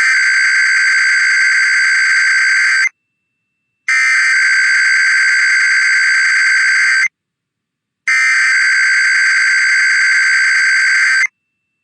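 Emergency Alert System SAME header: three bursts of digital data tones, each about three seconds long with about a second's pause between them. It is the encoded header of a Required Weekly Test sent through IPAWS, ahead of the spoken test message.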